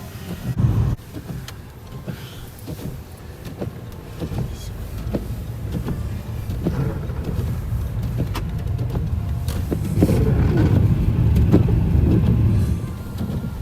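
Car on the move: a steady low road-and-engine rumble with scattered small knocks, growing louder about ten seconds in.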